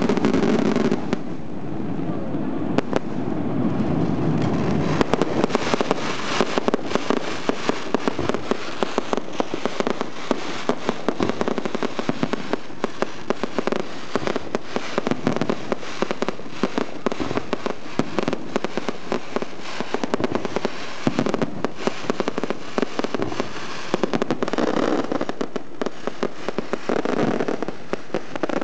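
Aerial fireworks display: a rapid, continuous barrage of bangs and crackles, many strikes a second, with no let-up.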